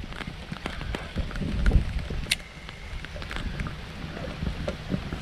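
Wind buffeting the microphone in gusts, with scattered light ticks and one sharper click about two seconds in.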